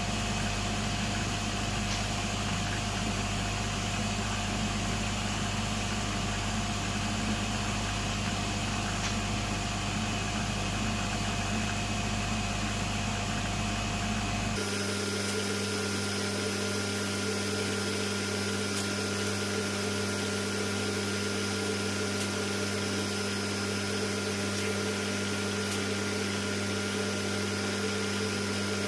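Steady hum of running laboratory machinery, several constant tones over a low drone. About halfway through the sound changes abruptly: the deep drone drops out and a higher-pitched steady hum takes its place.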